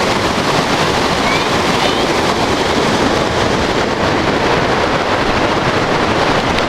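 Waterfall rushing, a steady, loud, unbroken roar of falling water.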